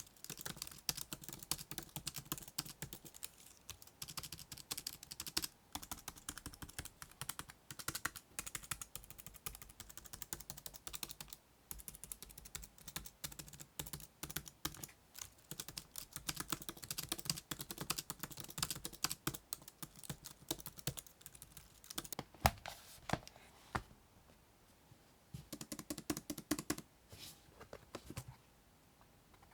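Typing on a 2010 15-inch MacBook Pro's scissor-switch keyboard: rapid, uneven key clicks in runs with short pauses, stopping near the end.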